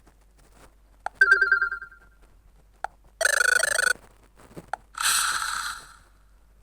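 Fly FS458 Stratus 7 phone's speaker playing three short ringtone snippets in turn, each under a second and each just after a click. The first is a ringing chime that fades out; the next two are buzzier electronic tones.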